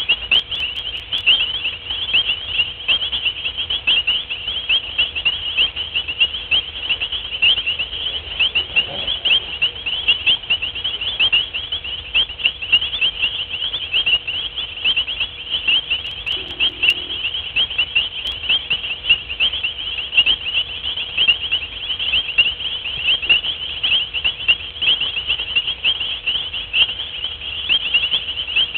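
Night chorus of many small animals, high-pitched chirps repeated fast and without a break, forming one steady shrill wall of sound.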